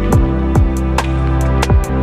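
Background electronic music with a steady beat: deep kick drums that drop in pitch, held bass notes and crisp high ticks.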